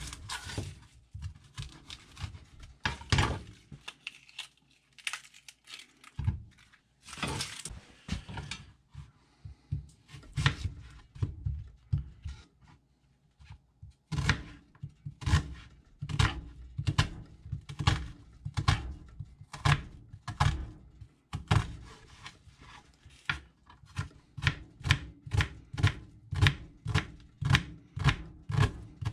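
Kitchen knife slicing and chopping an onion on a wooden cutting board, each stroke ending in a knock of the blade on the board. The cuts come unevenly at first and turn into quick, even chopping near the end.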